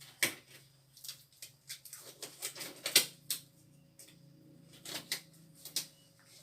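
Scattered light clicks and knocks of small equipment being handled and set down, irregular, with the sharpest knock about three seconds in, over a faint steady hum.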